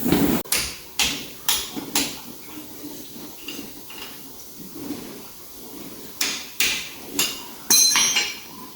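Hammer blows on metal: four strikes about half a second apart, a pause of a few seconds, then another quick run of strikes near the end, the last ones ringing.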